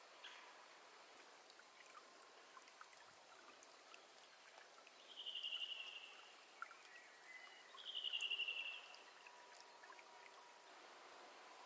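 Faint trickle of shallow swamp water flowing over a stream bed. Two short high trills stand out over it, about five and eight seconds in.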